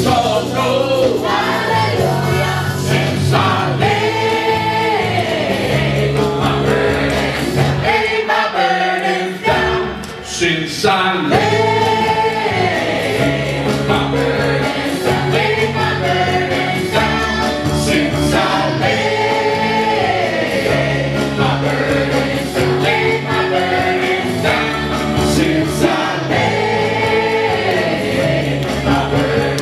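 Live church worship band playing a song: several voices singing together over guitar and a steady low bass line, with the low end dropping out briefly about nine seconds in.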